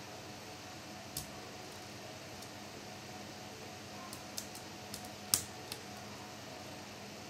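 Scattered light clicks and taps of small parts being handled during laptop disassembly, about six in all with the sharpest about five seconds in, over a steady low hum.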